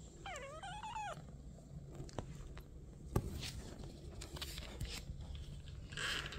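A four-week-old British Shorthair kitten gives one short meow, rising then falling, about half a second in. A few soft taps and rustles follow.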